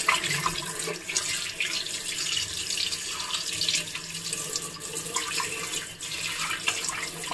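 Water running from a tap into a cement basin, splashing irregularly as a hand rubs and rinses fish under the stream.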